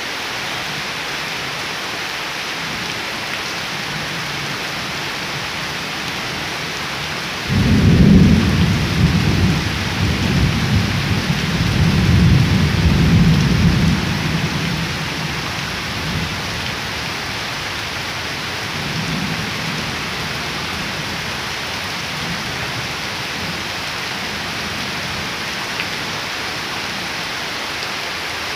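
Steady rain falling on flooded ground and leafy plants. A sudden low rumble of thunder breaks in about seven seconds in, swells for several seconds and dies away, and a fainter rumble follows a few seconds later.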